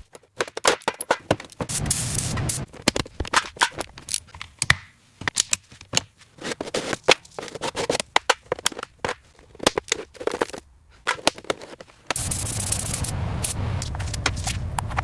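A rapid, irregular run of sharp clicks and knocks mixed with scraping. About twelve seconds in, a steady hiss starts suddenly under the clicks, which carry on.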